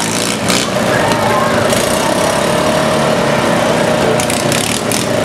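Riding lawn mower engines running as the derby mowers drive around, one holding a steady high pitch for about three seconds in the middle, with crowd voices around them.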